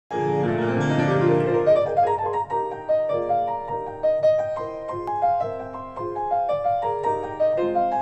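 Kawai grand piano played solo in a slow classical passage: a full chord held for about a second and a half, then a melody of single notes over softer chords at an unhurried pace.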